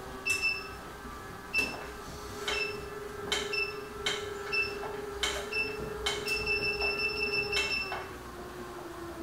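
LifeSpan recumbent exercise bike's console beeping as its buttons are pressed: about ten short, sharp beeps, then a rapid run of beeps lasting over a second near the end. Under it, a steady hum from the bike as it is pedalled.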